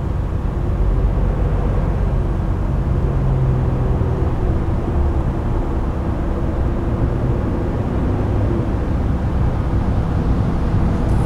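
Fire engine's engine running steadily with its pump engaged: a low, even rumble with a faint wavering hum.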